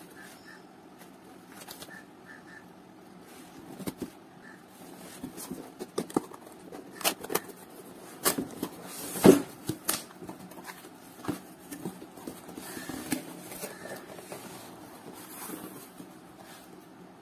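Cardboard carton being handled and opened by hand: scattered knocks, scrapes and rustles of cardboard and paper, the loudest knock about nine seconds in.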